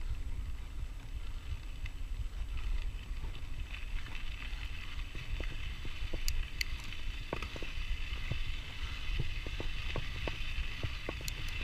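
Mountain bike rolling along a dirt trail: a steady low rumble of tyres and wind on the microphone, with a steady high hiss above it. Scattered short clicks and rattles from the bike over the ground start about halfway in.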